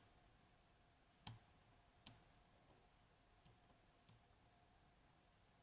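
Faint, sparse clicks of a dimple lock pick working the pins of a Kaba Gemini S high-security lock as each pin is probed: a sharper click about a second in and another about two seconds in, then a couple of softer ones.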